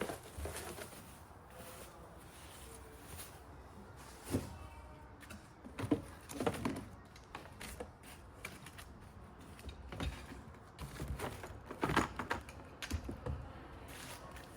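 Scattered knocks and clicks of the grass collection bin's parts being handled and fitted together during assembly of a Flymo Speedi-Mo 360c lawn mower.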